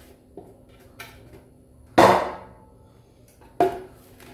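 Knocks of a plastic blender jar and spatula against a plastic mixing bowl as thick cake batter is scraped out: two light taps, a loud ringing knock about two seconds in, and another sharp knock near the end.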